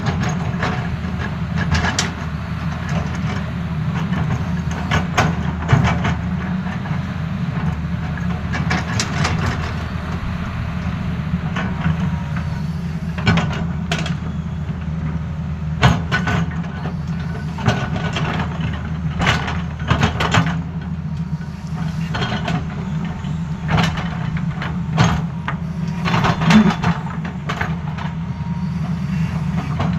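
Tata Hitachi excavator's diesel engine running steadily, with frequent sharp knocks and clanks from the working machine.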